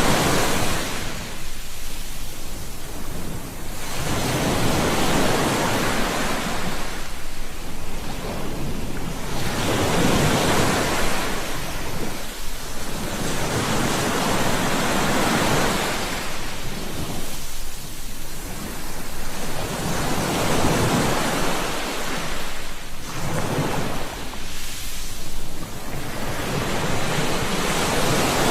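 Ocean waves breaking and washing up the shore, a steady rush of surf that swells and falls back about every four to five seconds.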